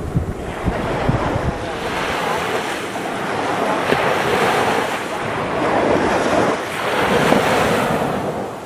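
Waves breaking and washing up on a sandy beach, the surf swelling and easing in several surges a couple of seconds apart. Wind buffets the microphone with low thumps in the first second or so.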